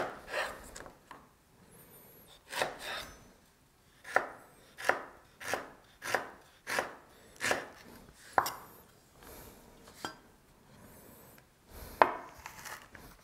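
Kitchen knife chopping fresh ginger on a cutting board to mince it: a steady run of sharp knocks about two thirds of a second apart, with a few scattered strokes before and after.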